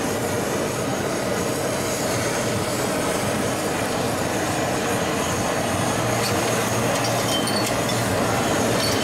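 Hand-held gas blowtorch running steadily as it sears pieces of fish on a hot stone plate: an even, unbroken rushing hiss.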